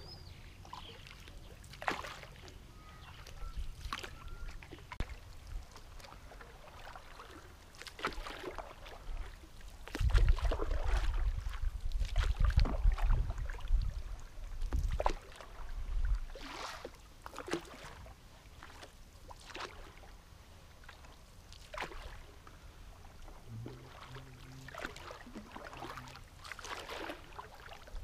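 Paddles dipping and pulling through calm water as a canoe is paddled along, with a short splash every second or two. A heavy low rumble swells for several seconds in the middle.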